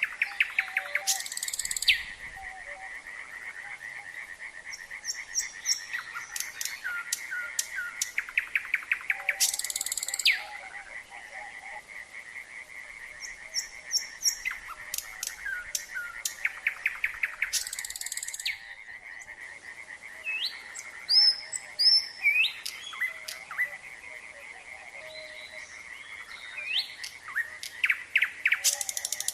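A nightingale singing in varied phrases: fast runs of repeated notes, clear rising whistles, and loud rattling bursts every several seconds. Behind it, a chorus of frogs calls steadily.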